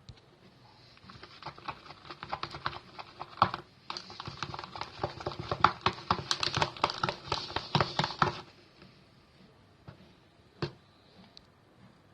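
Slime mixture with shaving foam being stirred, giving a dense run of small sticky clicks and squelches. It starts about a second in and stops after about seven seconds. One sharp click follows a couple of seconds later.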